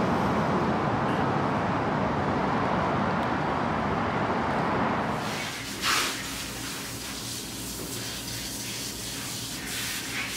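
A steady rush of outdoor noise for about five seconds, then a cut to the quieter background of a diner, with a short clink of dishes about a second after the cut.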